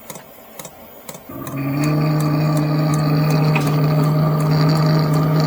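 MaXpeedingrods 12 V diesel air heater starting up: its blower fan kicks in about a second in and spins up to a steady, even hum. Faint quick ticking, about three or four a second, runs underneath.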